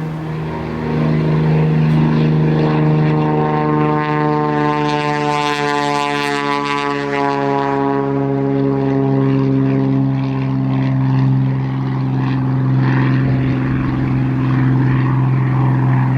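Cessna 210 Centurion's piston engine and propeller running at high power. The sound grows louder about a second in and is brightest and fullest between about four and eight seconds in, then holds a steady drone.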